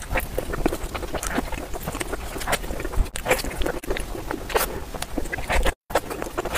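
Close-up wet chewing and lip-smacking on a soft taro sponge roll with taro-paste filling: irregular moist mouth clicks and smacks, several a second, broken by a brief drop-out near the end before a bite into a soft cream-filled bun.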